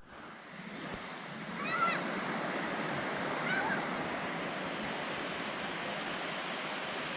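Steady rush of a waterfall pouring into a pool, with two faint distant voices calling out briefly about two and three and a half seconds in.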